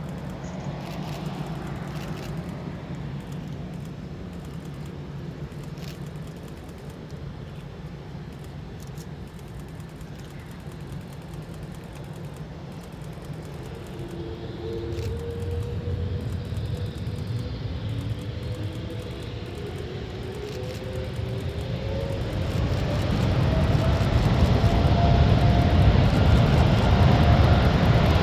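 Jet airliner engines, a Boeing 787's, growing steadily louder from about halfway through, with a low rumble and a whine that rises in pitch. A steady low hum is heard before that.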